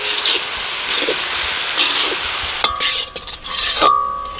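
Onion-tomato masala with spice powders sizzling in a hot black kadai while a steel ladle stirs and scrapes through it. After about two and a half seconds the sizzle drops and two short high tones sound.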